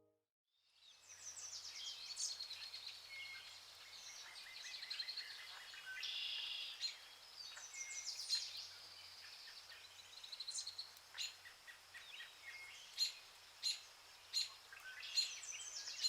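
Woodland birdsong: several small birds chirping and trilling over one another. It fades in about a second in, after a moment of silence.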